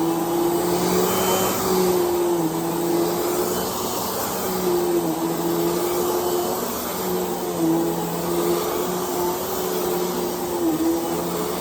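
Hoover Whole House Rewind upright vacuum cleaner running steadily while vacuuming, its motor hum dipping briefly in pitch every two to three seconds.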